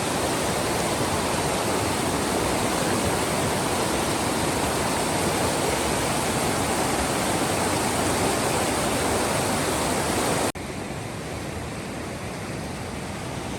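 Steady rushing of a fast mountain river. About ten seconds in it cuts off suddenly to a quieter, duller background hiss.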